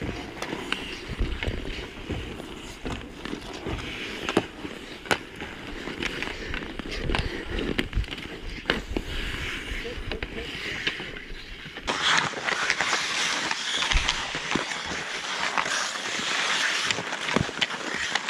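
Ice hockey play: skate blades scraping and carving on the ice, with sharp clacks of sticks and puck. About two-thirds of the way through the sound turns suddenly brighter and hissier.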